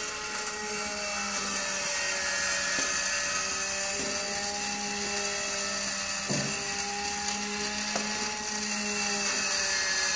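Rotisserie spit motor running with a steady hum, with a few sharp clicks now and then, the loudest about six seconds in.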